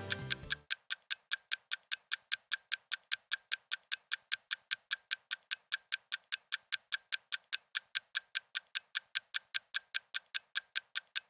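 Countdown timer ticking steadily, about four ticks a second, counting down a 60-second time limit. Background music cuts off about half a second in.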